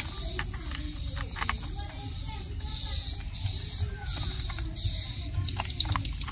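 Light plastic clicks and knocks as toy train cars are handled and coupled together, over a steady high hiss that pulses in several beats through the middle.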